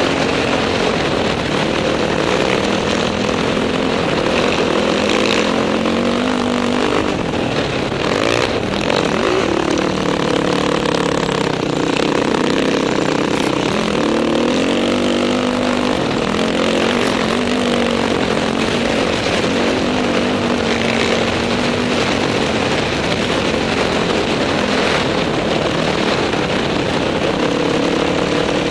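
Dirt bike engine running under way, its pitch rising and falling again and again as the throttle opens and closes and the gears change, over a steady rush of wind noise.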